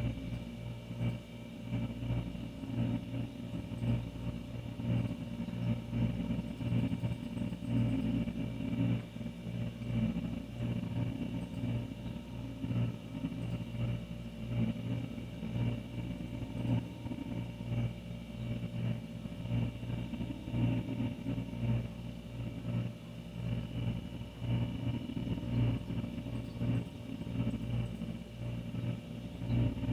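Older refrigerator running with a steady low hum.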